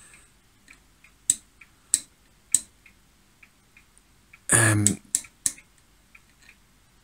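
Front-panel switch and knob of a Voltcraft 2040 oscilloscope being jiggled, giving sharp clicks about half a second apart, a longer, louder rattling clack about four and a half seconds in, then two more quick clicks. The trace cuts in and out as the switch moves, which the owner puts down to oxidised switch contacts.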